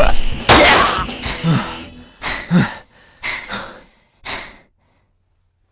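A person's heavy, gasping breaths, five or so in a row, growing quieter and further apart until they stop about a second before the end.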